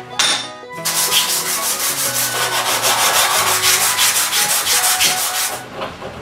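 Abrasive sanding of an alloy motorcycle gear shifter to round off its square machined edges: a steady rasping rub with a fast pulsing. It starts just after the beginning, pauses briefly, then runs on and eases off near the end.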